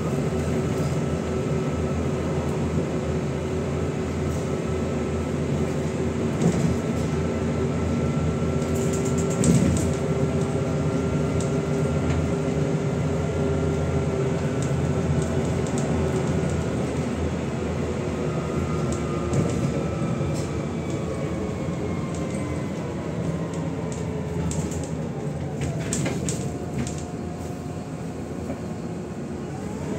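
Inside a MAZ-105 city bus on the move: steady diesel engine and drivetrain hum with road and tyre noise. A drivetrain whine slowly falls in pitch over the second half as the bus slows, then starts rising again near the end as it picks up speed. A couple of brief knocks in the first third.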